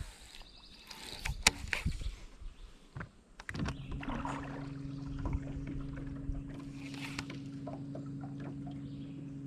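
A boat's electric trolling motor runs with a steady, even hum that switches on about three and a half seconds in, after a few sharp knocks in the boat.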